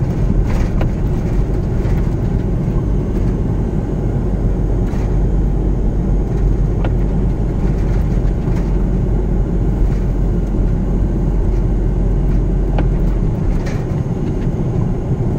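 Steady low rumble of a car driving slowly on a snow-covered road, heard from inside the cabin: engine and tyres on packed snow. The deepest part of the rumble eases near the end.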